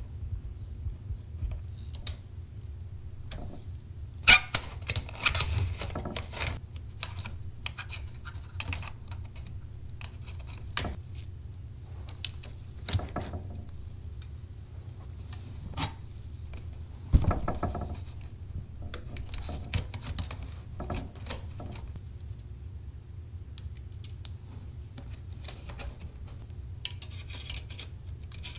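Hands cleaning and handling a Smith Corona Silent typewriter and its removed body panels: a cotton swab scrubbing the plastic in several scratchy rubbing passes, with scattered clicks and taps of plastic and metal parts. There is a sharper knock about four seconds in and another just past the middle, over a low steady hum.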